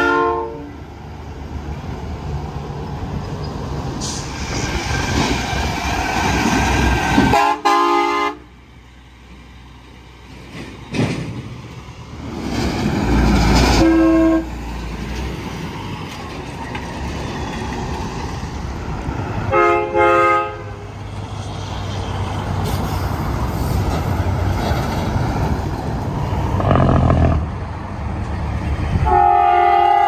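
Train horns on passing semi trucks sounding in short, chord-like blasts, four separate times with one starting at the very end, one of them very brief. Between the blasts the diesel engines of the passing semi trucks run.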